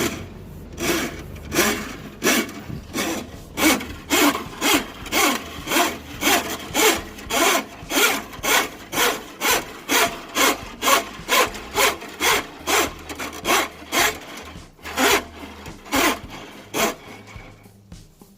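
Steel drain-snake cable being pushed by hand into a Milwaukee Switch Pack drum, which spins and winds the cable up as it feeds in. It makes a regular rasping stroke about twice a second, which stops near the end.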